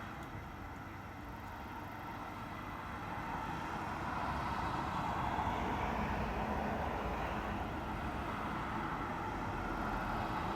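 Road traffic on a street: a steady rushing vehicle noise that grows louder about three to four seconds in and holds.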